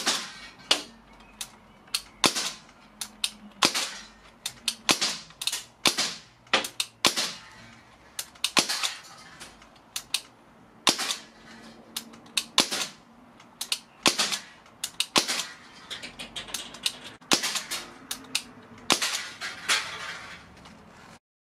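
Crosman 1077 CO2 air rifle firing .177 pellets in quick succession, about two sharp cracks a second, as the pellets hit and tear through an aluminium drink can.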